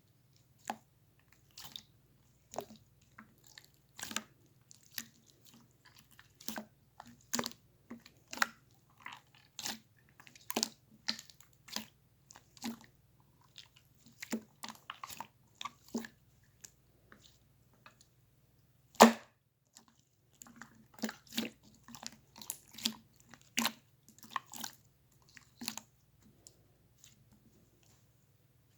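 Irregular sharp clicks and crunches, some in quick clusters, with one much louder crack about two-thirds of the way through.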